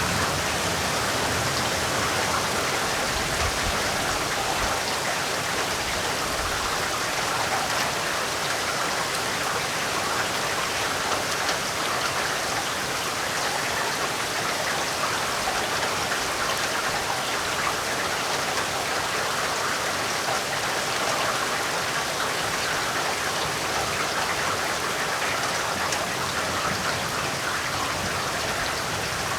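Heavy rain falling steadily, a dense even hiss of drops on surfaces with no letup or change.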